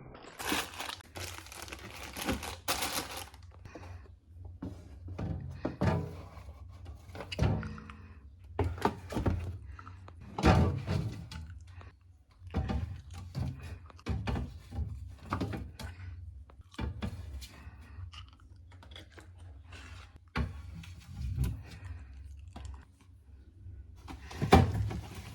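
Jars, bottles and containers being set down and moved about on fridge shelves: a string of irregular knocks and thunks, with a few seconds of rustling at the start.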